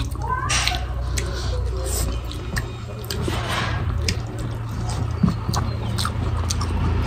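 Close-up eating sounds: wet chewing and lip smacks, with many short sticky clicks as rice is eaten by hand and fingers squish it on the banana leaf. A steady low hum runs underneath.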